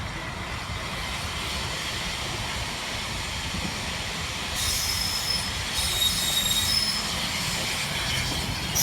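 Heritage train rolling into the station with a steady low rumble; from about halfway through, its wheels and brakes squeal in high, thin tones that come and go as it slows.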